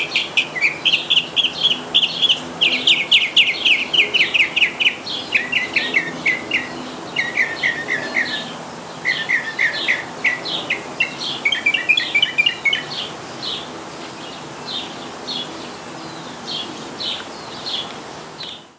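Northern mockingbird singing: a varied run of rapidly repeated phrases, each note pattern repeated several times before switching to the next, thinning to spaced single notes in the last few seconds.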